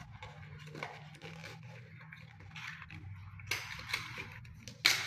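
Crinkling and crackling of a plastic mailer bag and a small cardboard box being handled and opened by hand, in irregular rustles with a few sharper crinkles, the loudest near the end.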